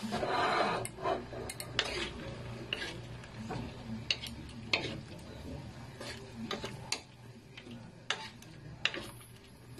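A spatula stirring chunks of squash in coconut milk in a non-stick pan. It opens with a louder scrape in the first second, then gives irregular clicks and knocks against the pan.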